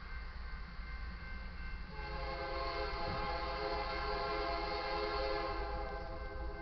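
Diesel locomotive air horn, from the lead EMD SD70MAC of an approaching freight train, sounding one long blast for the grade crossing. The blast starts about two seconds in, lasts about four seconds and fades out, over the steady ringing of the crossing's warning bell.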